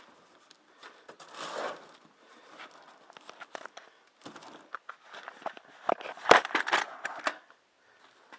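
Crinkly rustling and scattered sharp clicks and knocks, with a louder rustle about a second and a half in and a cluster of clicks around six to seven seconds in.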